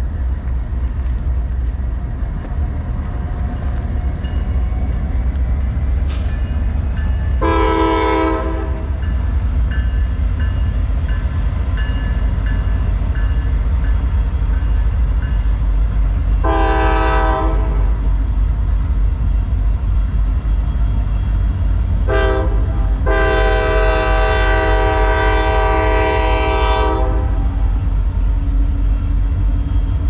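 Diesel freight locomotives of a double-stack train rumbling steadily past, their air horn sounding a chord in two long blasts, one short and a final long blast of about four seconds: the grade-crossing signal.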